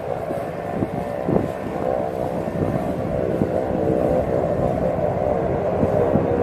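Consolidated PBY Catalina flying boat's two Pratt & Whitney R-1830 Twin Wasp radial engines at takeoff power during its run across the water. It is a steady, many-toned propeller drone that grows slightly louder.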